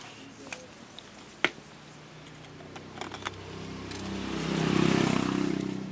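A few sharp clicks, then a passing vehicle's engine that swells, is loudest near the end and fades again over about three seconds.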